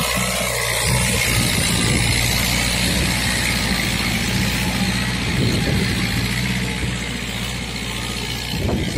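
Diesel engine of a VST Shakti MT 270 compact tractor running steadily under load as it pulls a tine cultivator through the soil.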